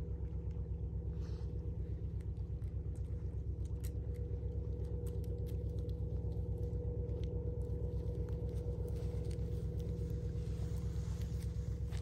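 Steady low drone of a boat's diesel engine across the water, with a constant hum and an even pulsing beat. Faint scattered clicks sound over it.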